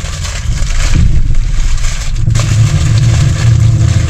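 Diesel engine of a loaded semi truck running, a low drone under road and wind noise; the drone grows louder and steadier about two seconds in.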